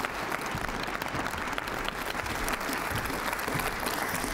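Audience applauding steadily: many hands clapping at once in a dense patter.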